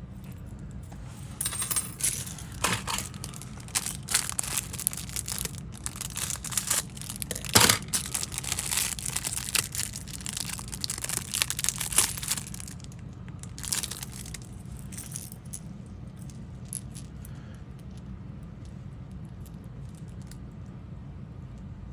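Small hard plastic and metal objects being handled: quick clicks, rattles and crinkles of a fishing lure and its plastic packaging, busy for most of the first two-thirds with one sharper click about eight seconds in, then thinning out.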